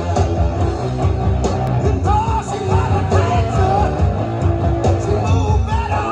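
Rock song with a sung vocal, guitar and a steady bass, played back over hi-fi loudspeakers driven by a Rotel RB-870BX power amplifier and RCT-850 preamplifier, heard in the room.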